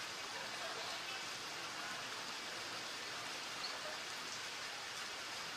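A steady, even outdoor hiss of noise with no distinct events.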